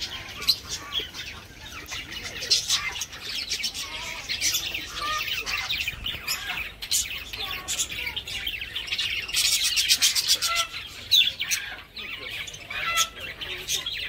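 A flock of budgerigars chattering, a dense, unbroken stream of high chirps and warbles, busiest about ten seconds in.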